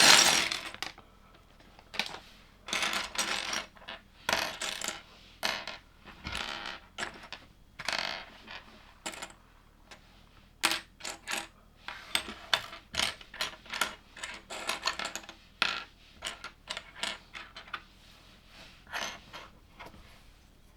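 Small plastic LEGO pieces clattering and clicking against each other and a hard surface in irregular bursts, after a louder noisy burst right at the start.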